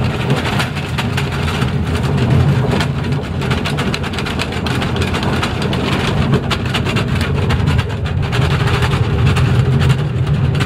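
Narrow-gauge mine trolley train running through a tunnel, heard from on board: a steady low rumble of steel wheels on rail with constant fine clicking and rattling from the unsprung wooden passenger car.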